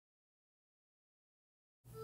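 Dead silence, with background music starting just before the end.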